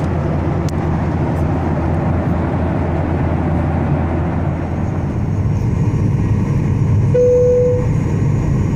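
Steady cabin noise of a Boeing 737-800 in flight: the CFM56 engines and airflow make an even low rush. A short steady tone sounds once, about seven seconds in.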